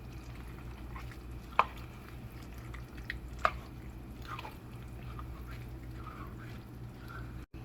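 Pot of dinuguan (pork blood stew) simmering, the thick sauce bubbling with scattered small pops and two sharper pops, about a second and a half and three and a half seconds in, over a steady low hum.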